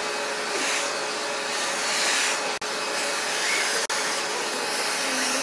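Vacuum cleaner running with a steady suction hiss as its brush nozzle is drawn through a cat's fur. The hiss swells and eases slightly, and the sound drops out for an instant twice, about two and a half and four seconds in.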